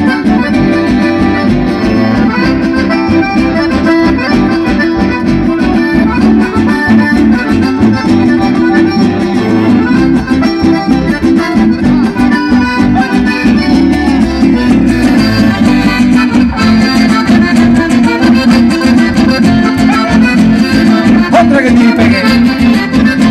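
Chamamé music with the accordion leading at a steady rhythm, playing on without a break.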